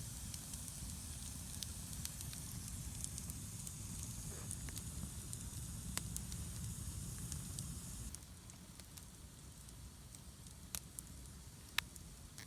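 Large wood campfire burning, crackling with scattered sharp pops over a steady hiss and low rumble; the rumble drops away about eight seconds in while the pops go on.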